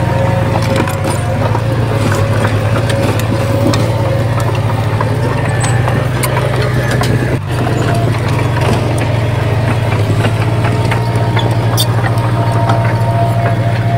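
Diesel engine of heavy earthmoving machinery running steadily, with scattered clicks and knocks over it. The sound drops out briefly about halfway through.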